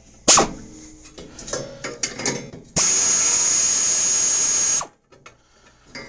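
Air ratchet running for about two seconds, a steady high hiss and whine, spinning out a 7/16 bolt, then cutting off suddenly. Before it, a sharp metal clank and lighter clicks of the tool being fitted on the bolt.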